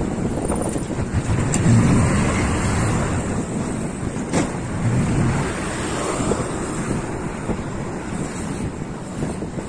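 Wind buffeting the microphone on a moving bicycle: a steady low rushing noise that swells about two seconds in.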